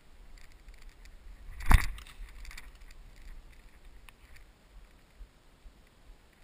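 A single sharp knock about two seconds in, over faint rustling and crackling of footsteps through dry brush.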